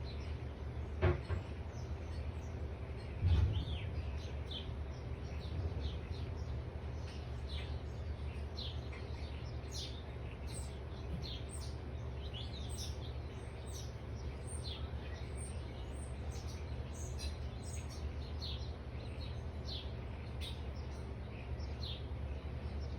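Backyard birds chirping, many short high calls coming one after another, over a steady low rumble. Two brief thumps in the first few seconds.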